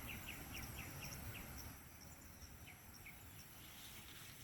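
Quiet countryside ambience: insects droning in a steady high tone, with a quick run of chirps at about six a second that fades out in the first second and a half, then two lone chirps. A low rumble sits underneath.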